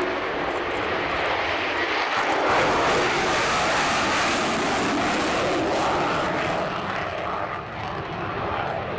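Lockheed Martin F-35A's single Pratt & Whitney F135 turbofan at full afterburner on takeoff: a loud, rushing jet noise that peaks a few seconds in as the jet passes, then fades and turns duller as it climbs away.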